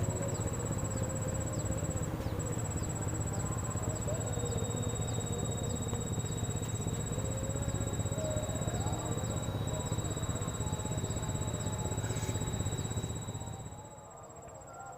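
Insects chirping in a steady high trill, with short repeated ticks, over a low rumble that drops away near the end.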